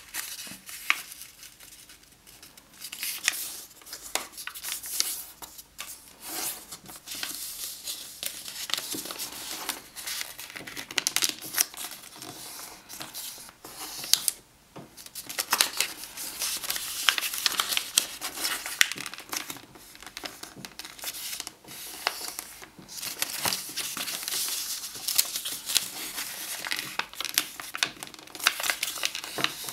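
A sheet of paper being folded and creased by hand: irregular rustling and crinkling with sharp snaps and clicks of the paper, broken by a short pause about halfway through.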